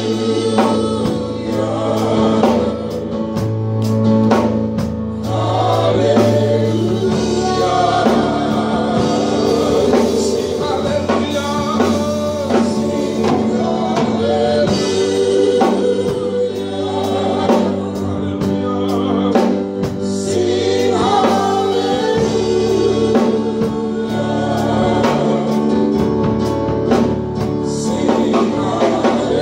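Live gospel worship music: a group of singers on microphones singing together over keyboard and drum kit, with a steady beat and held bass notes.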